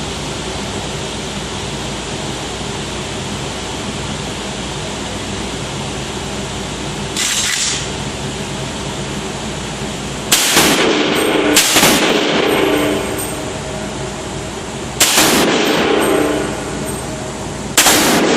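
Saiga .308 semi-automatic AK-pattern rifle fired four single shots, each a sharp crack with a ringing tail: two about a second apart, then two more about three seconds apart. A fainter, shorter report comes about 7 seconds in, over a steady hiss.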